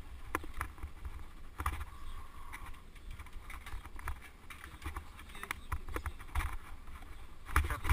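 Bike rolling slowly over stone paving and cobbles: irregular knocks and rattles over a low, pulsing rumble.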